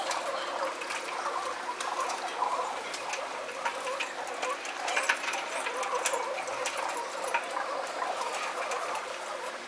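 Feral pigeons pecking grain and shuffling on a stone ledge, sped up to double speed: an irregular patter of small taps and clicks over a steady hiss, with a few sharper clicks standing out.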